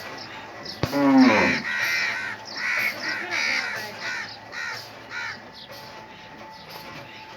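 A crow cawing: a loud call falling in pitch about a second in, then about six harsh caws roughly two-thirds of a second apart, fading out after about five seconds.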